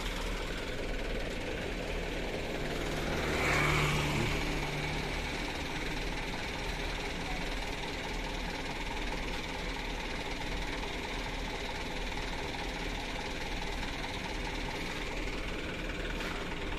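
Large diesel truck engine running steadily at idle, with a brief louder swell about four seconds in.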